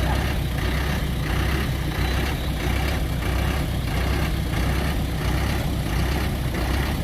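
Heavy diesel engine running steadily, with a regular pulsing about twice a second.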